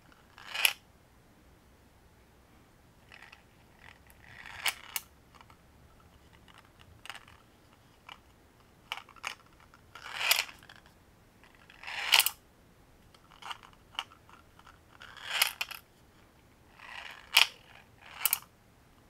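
Steel ball weights rolling along the inside of a 3D-printed plastic minnow lure body and clacking against each other and the plastic as the lure is tilted back and forth, shifting the weight and locking it back in place. About a dozen short rattles and sharp clicks, spaced a second or two apart.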